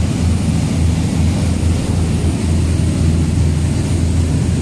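Charter fishing boat running at speed: a steady low engine drone over the rush of water and wind.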